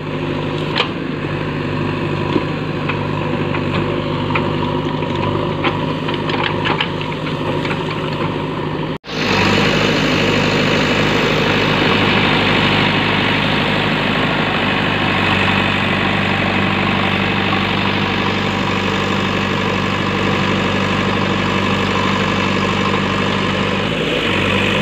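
JCB 3DX backhoe loader's diesel engine running steadily as the backhoe digs at a rubber tree's roots and pushes on its trunk, with a few sharp knocks in the first few seconds. The sound drops out briefly about nine seconds in, and after that the engine is louder and steady.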